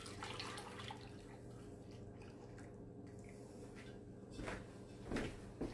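Tomato juice pouring from a pot through a fine-mesh strainer into a saucepan, a soft splashing and dripping, strongest in the first second. A few light knocks near the end.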